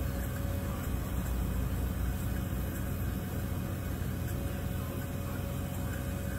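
Steady low hum and hiss of background machine noise, with a faint steady tone running through it.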